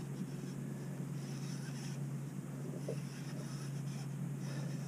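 Spinning reel being cranked steadily, a soft rapid scratchy ticking, as a light fish is reeled in on a bent rod. A steady low hum runs underneath.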